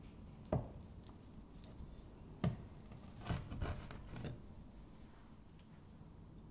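A long kitchen knife pressed down through a round of soft blueberry scone dough, its blade knocking on the wooden board beneath. There are two sharp knocks about two seconds apart, then a short run of softer knocks and scrapes.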